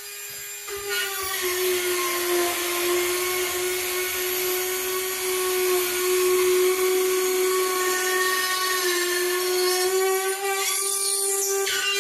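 Cordless rotary cutout tool trimming excess drywall. A steady high motor whine is joined about a second in by a gritty cutting noise, and its pitch sags a little as the bit bites into the board. The cutting stops just before the end.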